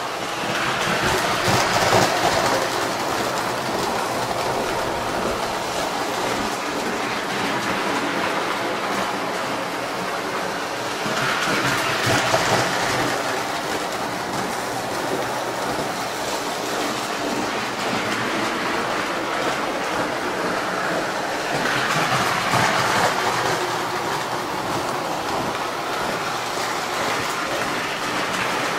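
Postwar Lionel O-gauge toy trains running on three-rail tinplate track: a steady clattering rumble of wheels and motor. It swells louder three times, about ten seconds apart.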